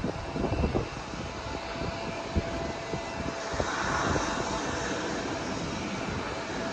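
Jet airliner engines heard from a distance: a steady rumble and hiss, with brief low thumps in the first second.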